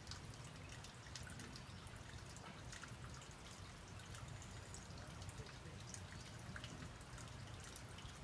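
Faint wind rumbling on the microphone, with scattered light ticks throughout.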